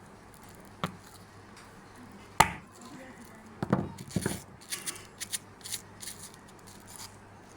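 A series of knocks and clicks from hard parts being handled. The loudest is a sharp knock about two and a half seconds in, then a cluster of knocks and a run of lighter, quicker clicks.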